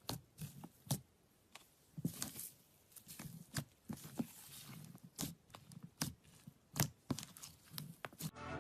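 Slime being squeezed and stretched by hand, making irregular sticky clicks and crackling pops.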